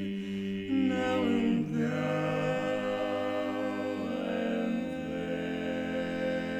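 Barbershop quartet singing a cappella in close four-part harmony, holding long sustained chords that change a few times.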